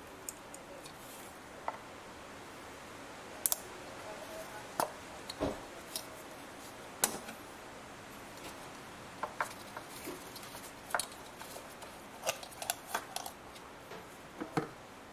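Irregular sharp clicks and knocks of plastic and metal parts being handled as ignition coil packs are unplugged and pulled out of a Mercedes C180 Kompressor's engine, one at a time.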